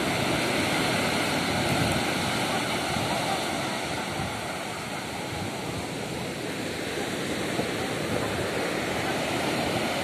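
Sea surf breaking on a sand beach, a continuous rushing wash of waves. It is strongest in the first couple of seconds, eases off midway and builds again as the next waves come in.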